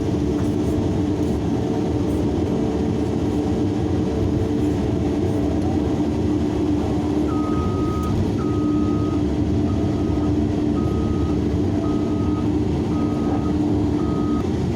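Large hydraulic excavator's diesel engine running steadily. From about halfway, a truck's reversing beeper sounds over and over, as the dump truck backs in to be loaded.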